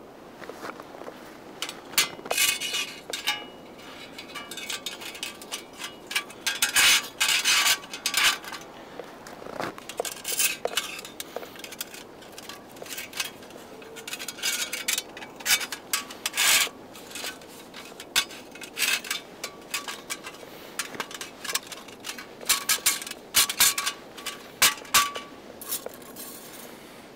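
Metal objects clinking, rattling and scraping as they are handled, in scattered clusters of sharp clicks throughout.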